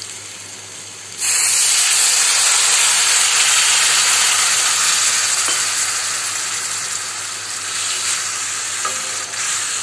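A glass of water poured into a hot kadai of fried masala and pointed gourds: a sudden loud sizzling hiss of steam starts about a second in, then slowly fades.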